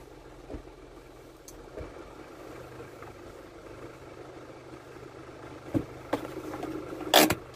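Isuzu 4HG1 four-cylinder diesel truck engine running steadily at low speed, heard from inside the cab as the truck rolls slowly. A few knocks about six seconds in and a loud sharp clunk near the end.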